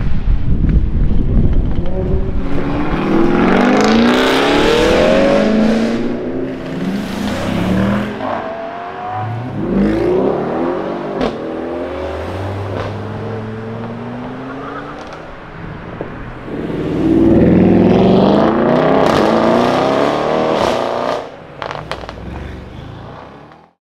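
Modified Audi RS7s' twin-turbo V8s with custom exhausts accelerating hard, in three loud runs: the pitch climbs and drops back at each upshift. Sharp cracks come between the pulls.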